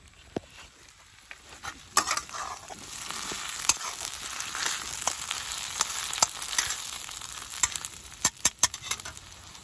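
Snail meat sizzling as it fries in a wok, with a metal spatula scraping and clicking against the pan as it is stirred. The sizzle comes up about three seconds in and eases off near the end.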